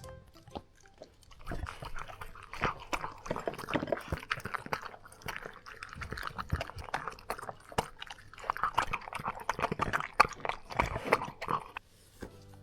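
A dog eating its food: a quick, uneven run of crunching and chewing clicks. It starts about a second and a half in and stops shortly before the end.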